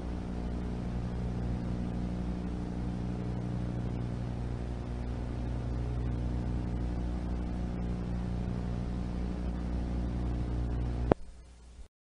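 Steady electrical hum with tape hiss on an analog videotape transfer. It is cut off by a sharp click about eleven seconds in, after which it is much quieter.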